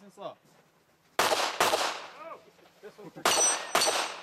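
Pistol-caliber carbine firing at steel targets: two quick pairs of shots, one pair about a second in and another about three seconds in. A thin, high ring of struck steel plates follows the second pair.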